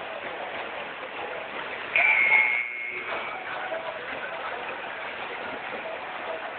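Steady rush of water pouring over a surf-simulator wave machine. About two seconds in, a single shrill whistle blast lasts just under a second and stands out above the water.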